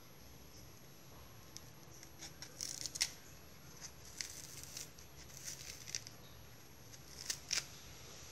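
Kitchen knife cutting and peeling the skin off unripe green bananas: faint, irregular short scraping strokes, starting about two seconds in.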